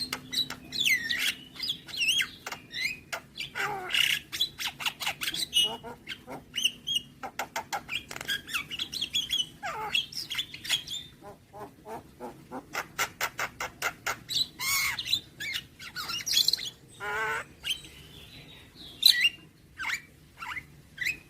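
Javan myna (jalak kebo) in full song: a varied, continuous medley of rapid clicking rattles, short whistled glides and harsh squawks, with brief pauses.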